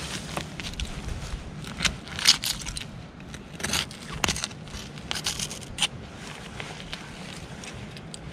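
Digging and rummaging through soil packed with broken bottle glass and small metal bits: irregular clinks, crackles and scrapes, the loudest a little after two seconds in.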